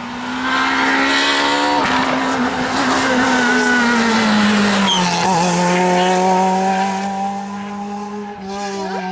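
Rally car at high revs approaching fast and passing close. Its engine note drops as it goes by about five seconds in, then it pulls away, quieter.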